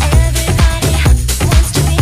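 Background electronic dance music with a steady, fast drum beat over a bass line.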